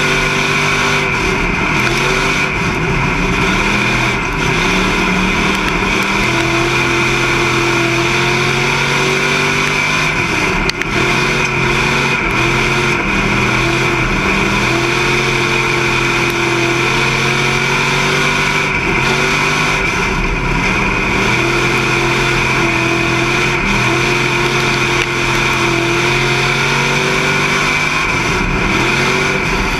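Street stock race car's V8 engine heard from inside the cockpit, at full throttle on the straights and backing off into each turn, its pitch dropping and climbing back about every four to five seconds.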